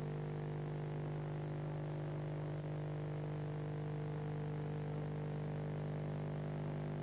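Steady electrical mains hum with several overtones over a faint hiss, unchanging throughout: hum on the soundtrack of the recording, not a sound from the scene.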